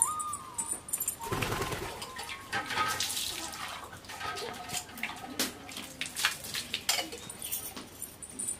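Water running from a tap and splashing, with scattered light knocks.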